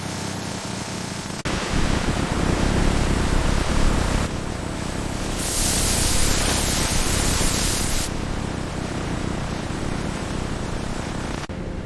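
Steady machine noise, a mix of hiss and rumble that changes abruptly several times, with a bright spraying hiss from about five to eight seconds in.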